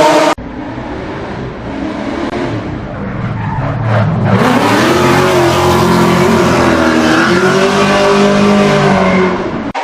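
Car drifting: its engine revs rise and fall under the tyres' squeal and skid noise. The sound changes abruptly a moment in and again about four seconds in, as it switches between recordings.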